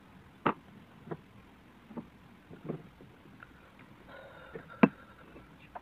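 Scattered knocks and taps, about six in a few seconds, the loudest two near the end, from speaker parts being handled and set down on a tabletop.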